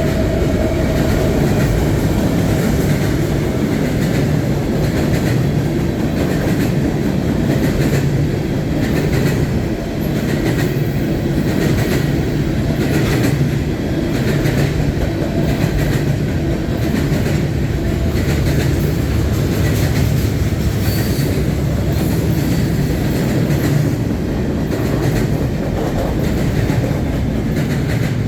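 CN freight train rolling past: a steady rumble of railcars with wheels clicking over rail joints.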